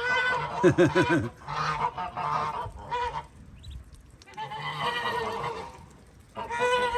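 Geese honking, a noisy run of long calls, about four of them, with short pauses between.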